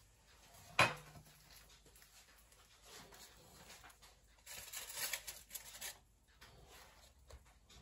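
A sharp knock about a second in, then about a second and a half of rustling and scraping as tongs work in a foil-lined air fryer basket and lift the food out.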